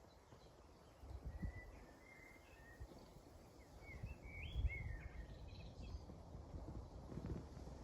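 A small bird chirping faintly in short high notes, a quick cluster of them about four to five seconds in, over low irregular thuds and rustling of someone moving through vegetation.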